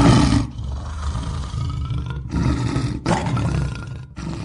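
Intro sound effect for a fireball animation: a loud, noisy, rumbling roar that breaks off briefly three times and fades out at the end.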